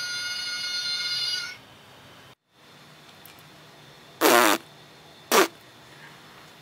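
A singing plush hamster toy's electronic tune ends on a held note about a second and a half in. A few seconds later come two short, loud, fart-like raspy blasts about a second apart.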